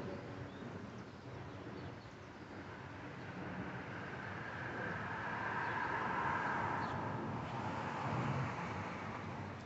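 A vehicle passing by: a rush of road noise that swells to its loudest about six seconds in, then fades.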